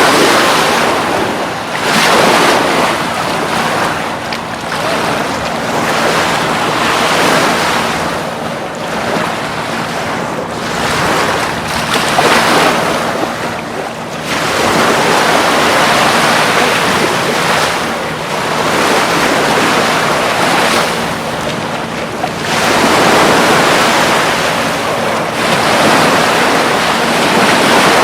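Atlantic surf breaking and washing up the beach, swelling and easing every few seconds, with wind on the microphone.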